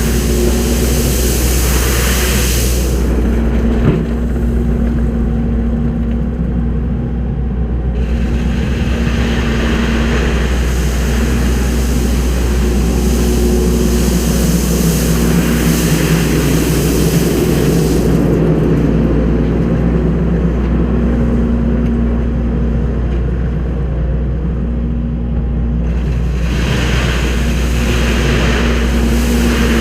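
Kubota skid steer's diesel engine running steadily as the machine works, with a higher hiss that swells and fades every several seconds.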